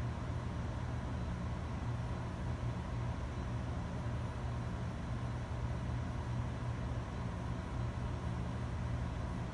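A steady low hum that does not change, with a faint steady higher tone above it.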